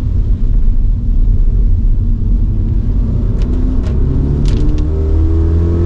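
Toyota GR86 on the move in the rain, heard from inside the car: a heavy low rumble of tyres on a wet road. About halfway through, the engine's note comes up over the rumble and holds as the car pulls. A few sharp clicks sound partway through.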